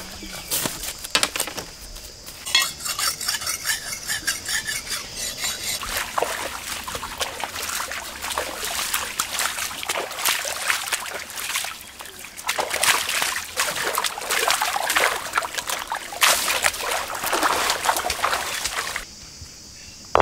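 Water pouring and splashing as goat chest bones are rinsed and rubbed by hand on a stone slab, in uneven surges. A single sharp knock at the very end.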